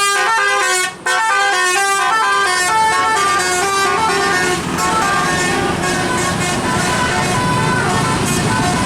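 Telolet musical horn playing a quick tune of stepping notes, with a short break about a second in. Partway through the notes grow fainter and a vehicle engine and road noise rise underneath.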